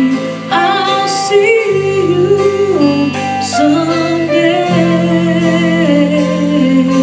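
A band playing a slow ballad, with a woman singing long held notes with vibrato over a steady bass line and a light beat.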